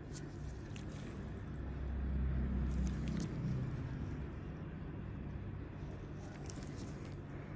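Steady low background rumble that swells louder for about two seconds, starting about a second and a half in, with a few faint sharp clicks scattered through it.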